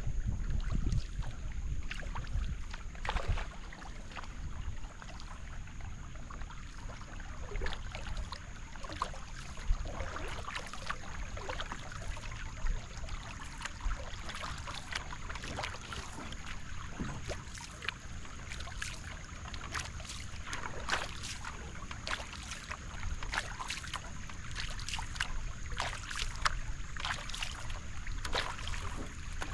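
Single-blade paddle strokes in calm creek water from a Wenonah J-210 racing canoe: a short splash and drip with each stroke, coming irregularly one after another, over the faint wash of the hull gliding through the water.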